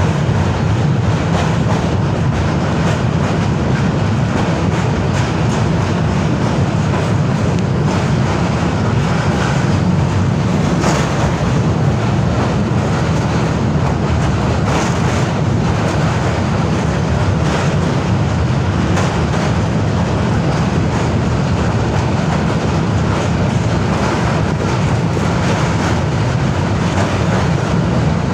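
Thal Express passenger train running steadily, heard from inside a carriage: a continuous deep rumble of wheels on the rails, with a faint click from the track now and then.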